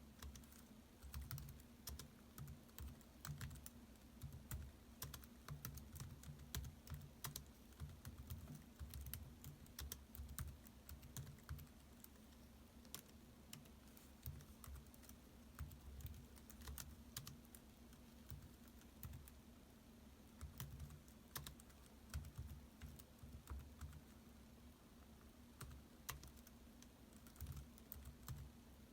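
Quiet typing on a laptop keyboard: quick runs of soft key clicks broken by short pauses, over a faint steady low hum.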